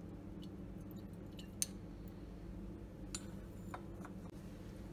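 Lab glassware being handled on a bench: a few light clicks and clinks of glass, the sharpest about a second and a half in, over a steady low hum.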